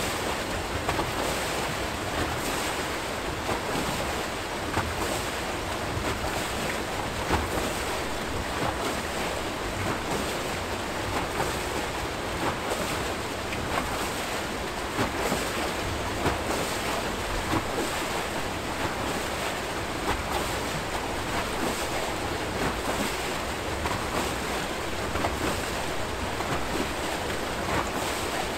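Water rushing and churning as it pours out of the foot of a turning Archimedes-screw hydroelectric turbine, a steady noise with irregular louder splashes.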